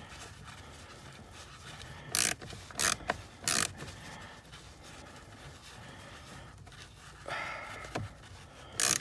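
Short scraping and rubbing sounds of plastic trim and tools being handled: three brief scrapes about two to three and a half seconds in, then a longer scrape, a click and another scrape near the end.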